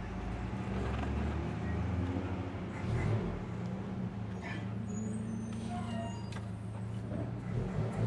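A motor vehicle engine running steadily with a low hum, with a few light clicks and knocks from hand work on the column.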